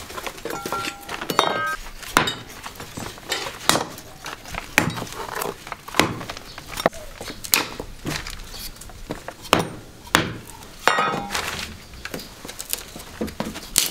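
Irregular knocks and clinks of kitchen utensils and crockery, roughly one a second, a few of them ringing briefly.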